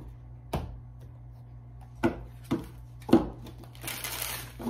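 A deck of tarot cards being handled and shuffled by hand: four sharp taps and clicks spread over the first three seconds, the loudest about three seconds in. Then a second of dense, rapid card rustling as the cards are shuffled near the end.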